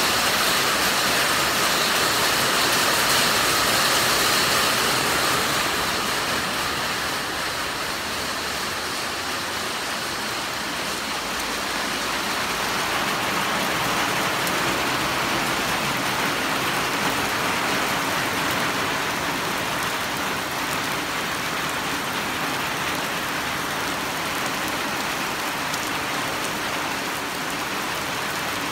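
Steady rain falling, a continuous even hiss that becomes a little quieter after about six seconds.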